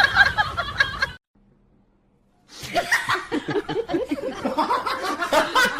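People laughing in two stretches, broken by about a second and a half of near silence.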